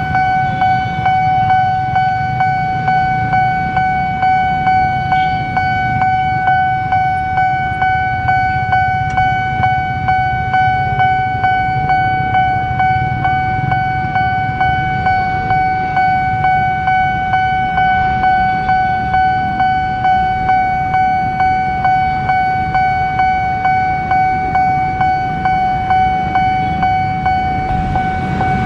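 Railway level-crossing warning bell sounding: one steady electronic tone pulsing in an even rhythm, over a low rumble of road traffic.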